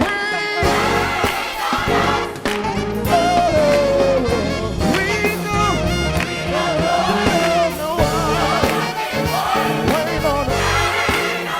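Live gospel music: a church choir singing with band accompaniment.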